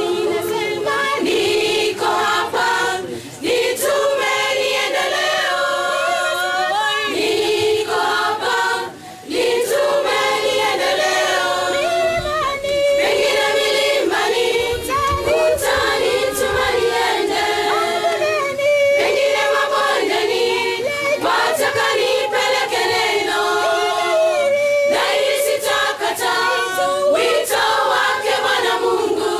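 A choir singing in harmony, several voices holding long notes together, with short pauses between phrases about 3 and 9 seconds in.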